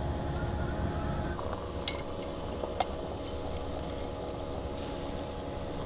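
Stovetop moka pot gurgling and sputtering as the coffee comes up, over a steady low rumble of gusting wind, with a couple of light clinks around two seconds in.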